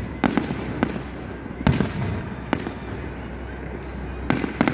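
Aerial firework shells bursting: about seven sharp bangs at irregular intervals, two in quick succession near the start and the loudest a little under two seconds in.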